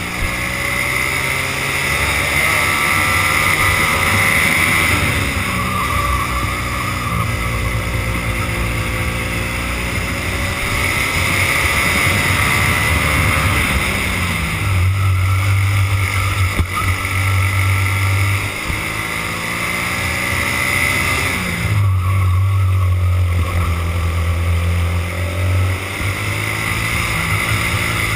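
Racing kart engine heard onboard at full race pace, its pitch climbing steadily and then dropping sharply three times as the revs come down before climbing again.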